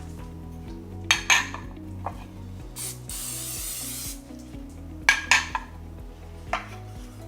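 Aerosol cooking spray hissing into a muffin tin in one burst of about a second, a few seconds in. Before and after it come two loud clusters of sharp metallic clatters, the loudest sounds here.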